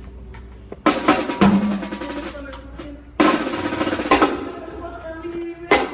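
Drum kit being struck during a band's sound check: a few separate loud hits, one about three seconds in ringing on for about a second.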